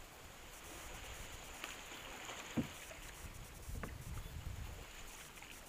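Quiet water sounds around a kayak on calm sea, with two faint knocks against the hull, one about two and a half seconds in and one near four seconds, followed by a brief low rumble.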